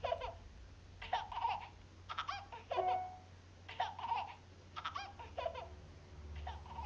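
A baby giggling and babbling in short bursts, about one a second.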